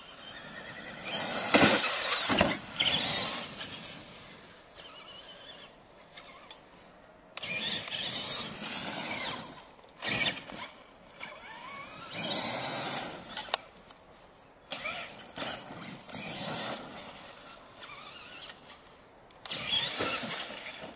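Traxxas Summit RC truck's electric motor and drivetrain whining in about five bursts of throttle, each rising in pitch as it speeds up, on a 4S LiPo. A few sharp knocks in between as the truck hits the ground.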